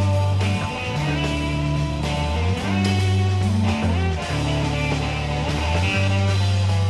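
Psychedelic rock music with guitar over long, held bass notes that change pitch every second or two.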